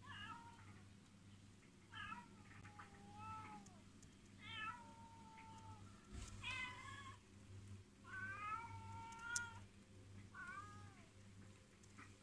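Domestic cats meowing repeatedly: about six meows a second or two apart, each rising and then falling in pitch, some drawn out over a second.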